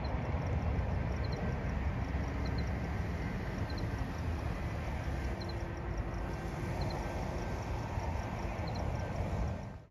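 Steady low outdoor rumble with faint high chirps in pairs about every second and a half over it; the sound cuts off abruptly near the end.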